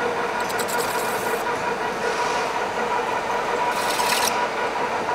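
Metal lathe running with its chuck spinning: a steady mechanical hum with a constant whine. Two brief hissing scrapes come in, one about half a second in and one near four seconds.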